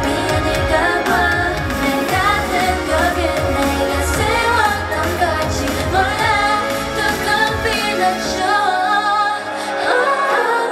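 K-pop song with female group vocals over a pop backing track. The bass drops out about eight and a half seconds in, leaving the voices over lighter accompaniment.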